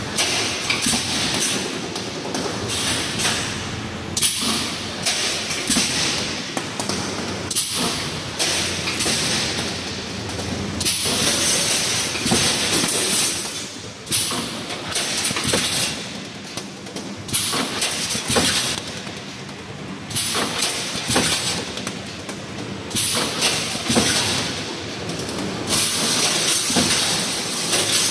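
Pneumatic reinforcing-mesh welding machine running, its air cylinders driving the weld heads with repeated knocks and bursts of air hiss that come and go every second or two.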